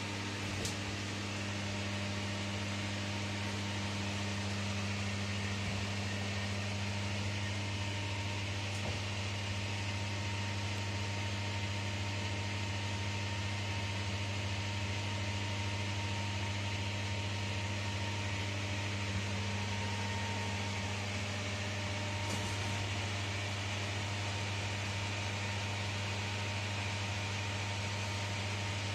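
Ferris wheel cabin's air-conditioning unit running: a steady electrical hum under an even fan hiss.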